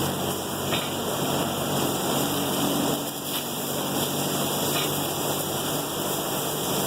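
Oxy-fuel welding torch burning steadily with a neutral flame, a continuous hiss, with a few faint ticks as the weld goes on.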